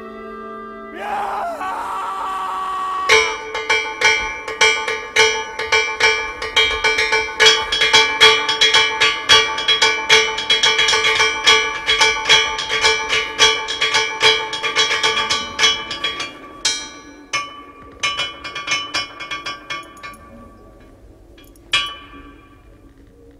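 Rapid, irregular strikes on ringing metal, bell-like, with several pitches held ringing between the strikes. They begin about three seconds in after a short wavering scrape, thin out after about sixteen seconds, and one last strike comes near the end.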